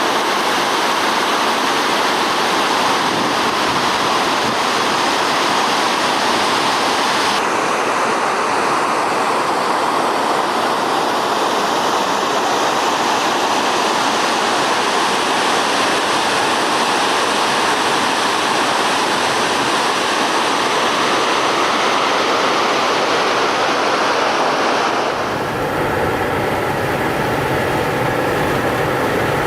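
Kakabeka Falls' water rushing, a loud, steady roar of falling water. About 25 seconds in it gives way to a steady vehicle drone with a faint hum.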